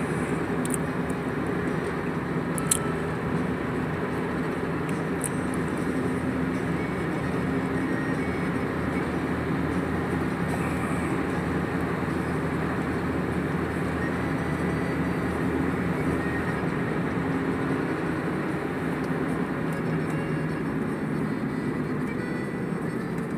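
Engine and road noise heard from inside a Ford's cabin while cruising at a steady speed, an even rumble with a faint engine hum. A single sharp click about three seconds in.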